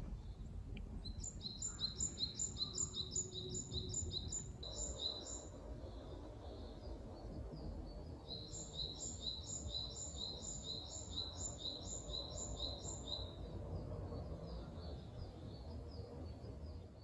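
A bird singing two runs of quick, evenly repeated high notes, about three a second, over a steady low rumble of outdoor background noise.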